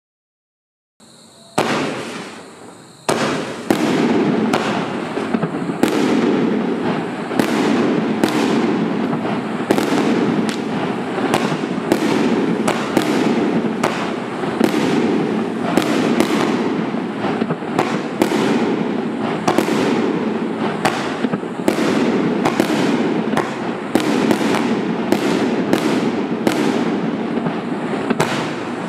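Spectra 'Illumination' 28-shot fireworks cake with 38 mm and 48 mm tubes, firing. After a second or so of silence the shots begin and come more than once a second, each a sharp bang over a steady din of bursting effects overhead.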